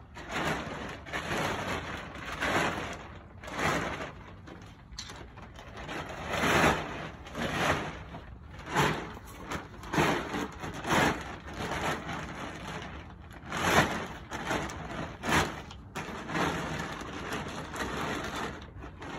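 Heavy 5-mil blue plastic tarp rustling and crinkling as it is gathered and tucked down by hand, in uneven crackly bursts about once a second.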